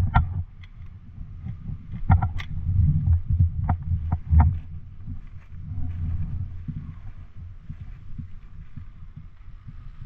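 Low, uneven thumps and rumble from movement and handling on a body-worn microphone, with a few sharp clicks and knocks in the first half.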